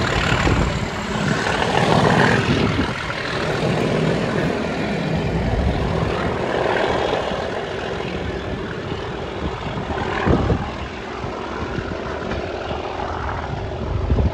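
A Class 37 diesel-hauled train of passenger coaches running away down the line. The rumble of wheels on the rails and the diesel engine fade gradually as it recedes.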